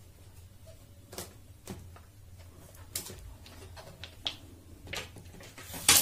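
Plastic polarizer film being pressed and smoothed by hand onto glass: scattered light crinkles and taps, then a louder burst of crackling near the end as the film sheet is lifted.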